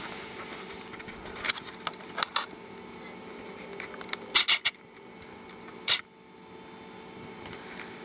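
Handling noise from a hand-held camera: scattered sharp clicks and knocks, a cluster of them about four and a half seconds in and another about six seconds in, over a steady low hum.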